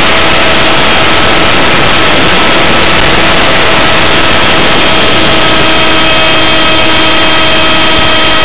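Electric motor and propeller of a ParkZone Stryker F-27Q foam flying wing at steady full throttle, heard from a camera on board: a high, even whine at one pitch under a heavy rush of air over the microphone.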